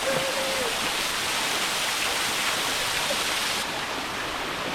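Steady rush of flowing water, as from the river and the hot-spring streams, easing slightly in its hiss about three and a half seconds in.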